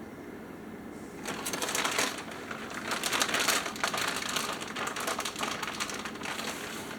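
Plastic bag of shredded mozzarella crinkling and rustling as the cheese is poured out, starting about a second in.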